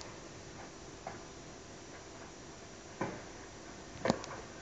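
Tennis ball being struck back and forth in a rally, heard through a television: a few sharp knocks one to two seconds apart, the last two close together near the end.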